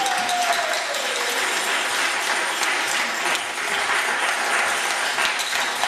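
An audience applauding: dense, steady hand-clapping. A held note slides down and fades out about a second in.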